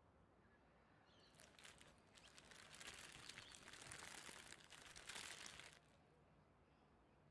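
Faint crackling, rustling noise, starting about a second and a half in and stopping about six seconds in.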